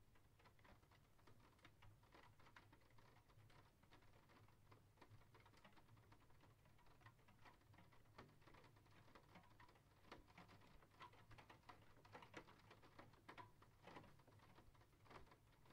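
Faint rain pattering: many small, irregular drop taps, growing denser and a little louder in the second half, over a low steady hum.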